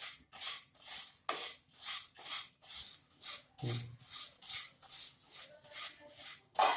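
A spatula stirring dry vermicelli as it roasts in ghee in a non-stick kadhai: a rhythmic scraping rustle of the strands against the pan, about two strokes a second.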